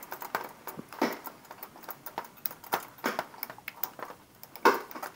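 Scissors clicking and snipping at thin electrical wires: a string of irregular sharp clicks, the loudest near the end.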